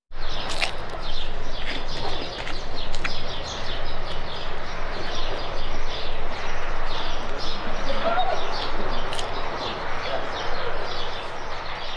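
Outdoor ambience of many birds chirping in quick short calls over a steady background hiss, coming in abruptly at the start.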